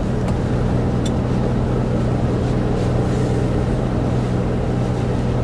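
A truck's diesel engine running with a steady, even hum that does not change.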